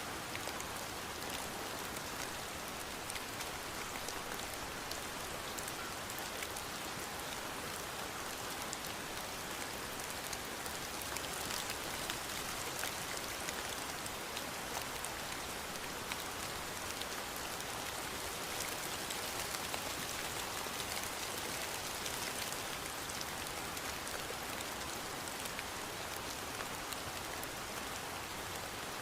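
Steady rain falling on a surface, an even hiss with fine scattered drop ticks.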